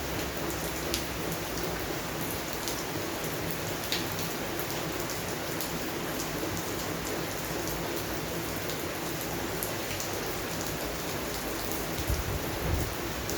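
Steady rain falling on garden plants, with single drops ticking louder here and there, and a low rumble near the end.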